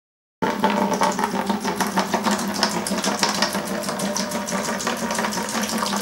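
Water glugging out of a plastic bottle into an empty plastic bucket, starting about half a second in: a steady pouring stream broken into rapid gurgling pulses.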